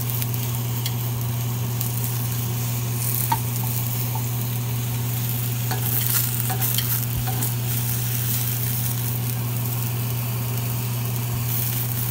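Ancho chiles, tomato, onion and garlic sizzling as they toast in a nonstick skillet, with metal tongs turning them and clicking lightly against the pan a few times, most sharply about three seconds in. A steady low hum runs underneath.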